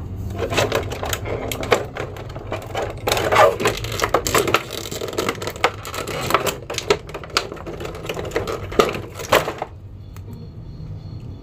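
Clear plastic blister packaging crackling and clicking as small plastic action figures are handled and pulled out of it. The clicking stops near the end.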